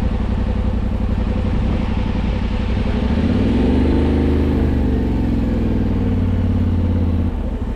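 Yamaha Ténéré 700 parallel-twin engine running under way. About three seconds in, its note rises as it pulls harder, holds, then eases off near the end, over a steady rush of wind.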